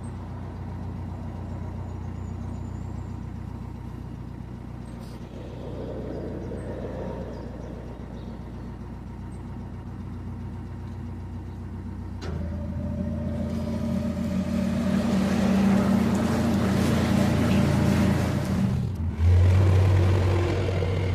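Narrowboat's diesel engine running steadily at cruising speed. About twelve seconds in it grows louder, and a rushing noise builds over it for several seconds.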